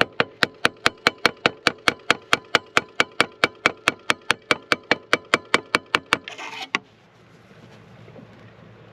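A fast, even run of sharp mechanical clicks, about five a second, that stops about six seconds in, followed by a brief rustle.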